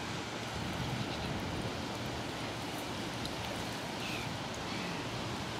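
Steady outdoor noise of wind and moving water, with no clear single event standing out.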